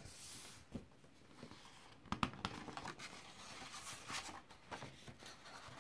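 Faint rustling and handling of a picture book's stiff paper pages as a page is turned, with a few light taps.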